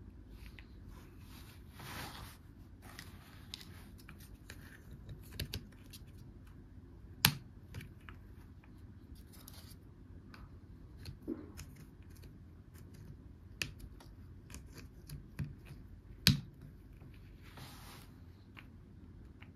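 Small plastic toy pieces being handled and fitted together on carpet: scattered light plastic clicks and rubbing, with two sharp snaps about seven and sixteen seconds in as parts click into place.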